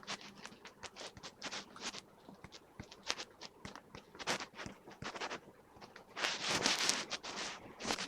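A quick run of short scratching strokes, with a longer, louder rasping stretch about six seconds in.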